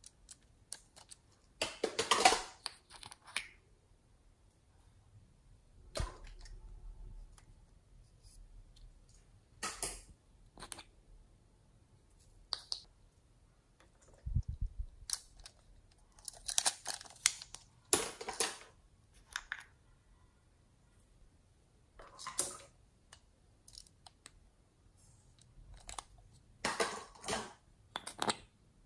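Scattered clicks, taps and brief rustles of hands handling small plastic toy figures and a little plastic cup of glitter, with quiet gaps between.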